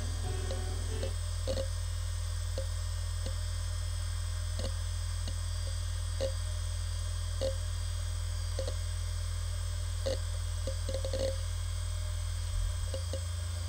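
Maxtor DiamondMax 1750 (87000D8) hard drive spinning at 5200 RPM with a steady low hum, its heads seeking in about a dozen irregular short ticks, with a quick run of ticks about eleven seconds in.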